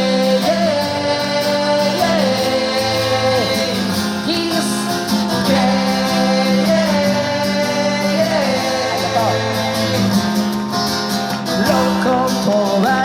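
Rock band playing an instrumental break between verses of a song: guitars carrying a melody over a steady beat.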